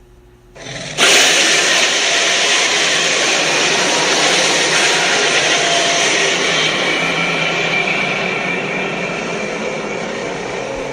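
King Ghidorah movie sound effect: a loud rushing noise that starts suddenly about a second in and holds, slowly fading, like a jet-engine blast.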